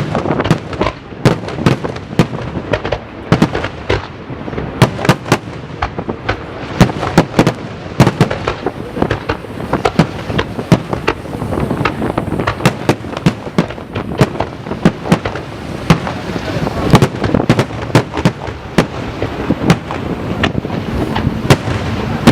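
Fireworks display in full barrage: shell bursts bang one after another, several a second, over a continuous rumble from the ongoing explosions.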